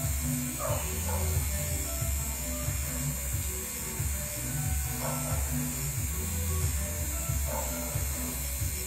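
Electric buzz of a pen-style tattoo machine driving its cartridge needle into skin, with music playing underneath.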